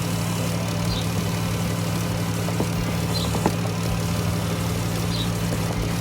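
Chrysler 3.6-litre Pentastar V6 idling steadily on freshly replaced spark plugs, running smoothly.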